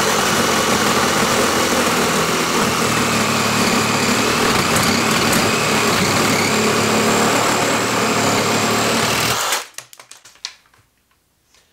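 Ryobi P519 18V One+ reciprocating saw with a 12-inch Diablo pruning blade running flat out through a 4x4, a steady loud buzz; it cuts off suddenly about nine and a half seconds in as the cut finishes, followed by a few light knocks.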